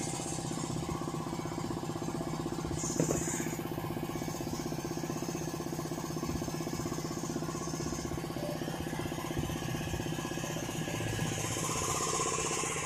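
A motor running steadily throughout, with a short hiss and click about three seconds in and a longer, softer hiss near the end.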